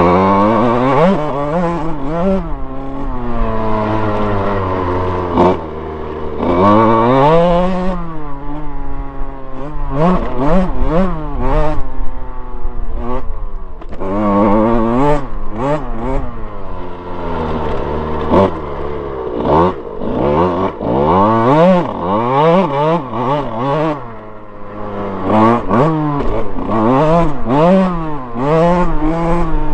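Motocross dirt bike engine being ridden hard: the revs climb and drop over and over as the throttle is opened and shut through the gears, over jumps and into corners, with brief dips where the throttle is chopped.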